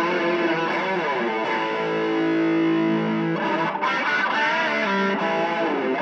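Electric guitar with distortion playing a lead line: a few bent, gliding notes, then a long held note in the middle, then more notes.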